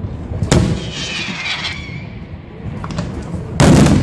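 Aerial firework shells going off: a sharp bang about half a second in, a hiss after it, and a louder, longer blast near the end.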